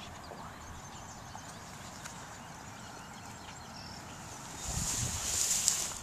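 Outdoor background with light rustling in grass. About four and a half seconds in, a louder rushing hiss with a low rumble lasts about a second and a half, then stops.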